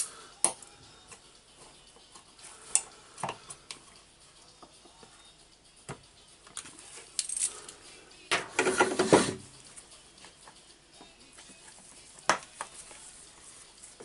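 Plastic grease tub being handled and cut open on a workbench: scattered clicks and taps, with a louder scraping noise about a second long a little past the middle.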